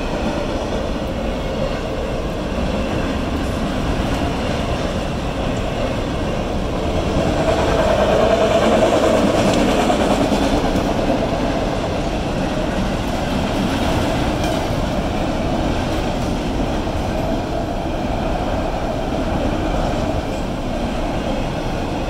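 Freight train cars rolling steadily past over the crossing, wheels rumbling and clattering on the rails. It grows a little louder for a few seconds around eight seconds in.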